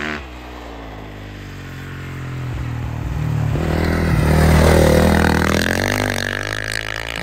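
Dirt bike engine revving as the bike rides past on snow, growing louder to a peak about four to five seconds in, then fading as it moves away.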